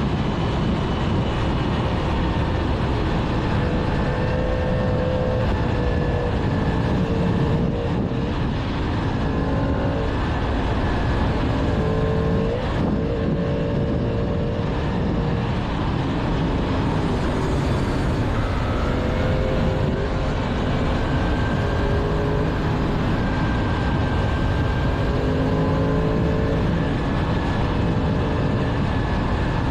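2022 Yamaha MT-10's crossplane inline-four on its stock exhaust, heard while riding: the engine note rises and falls repeatedly as the rider accelerates and eases off through the gears. A steady rushing noise runs underneath.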